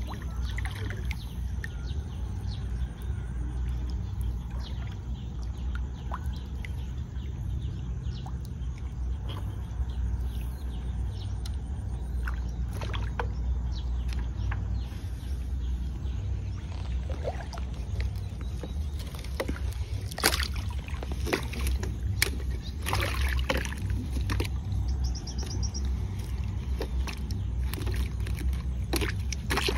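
Steady low rumble of outdoor water ambience, with scattered splashes and knocks as a bamboo-poled lift net is worked in floodwater; several come close together about two-thirds of the way through.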